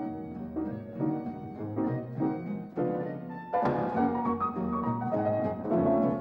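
Film score music, led by piano with a low bass line, in short repeated chords. A fuller, louder passage comes in about three and a half seconds in.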